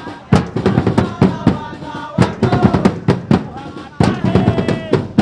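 Marching bass drums beaten hard with mallets in a fast, uneven rhythm of sharp strikes, while a crowd of supporters chants and sings along.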